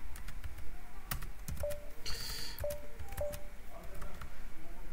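Typing on a computer keyboard: irregular key clicks as a router command is typed, deleted and retyped. A few short, faint steady tones sound among the clicks.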